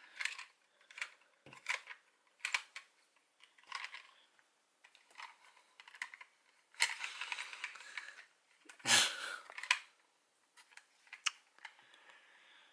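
Plastic Progrise Key toy clicking and rattling in the hand as it is flicked and spun around a finger. There are scattered sharp clicks, with two longer rattles about seven and nine seconds in.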